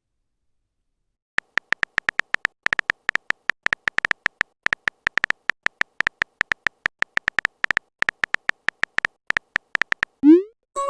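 Phone keyboard typing sound effect: a rapid, irregular run of short clicks at one steady pitch. Near the end comes a quick rising swoosh, the sound of a text message being sent.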